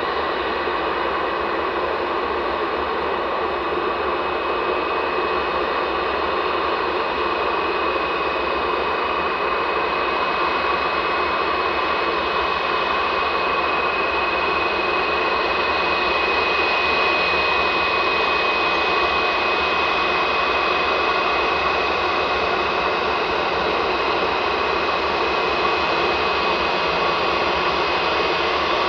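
Jet airliner engines running at taxi idle: a steady hiss with a thin, high whine that grows a little louder in the middle.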